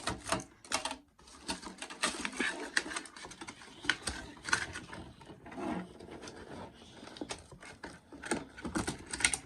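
Hands working at the tough plastic tie-downs on a boxed RC truck, making a string of irregular clicks, snaps and scraping rustles of plastic and packaging.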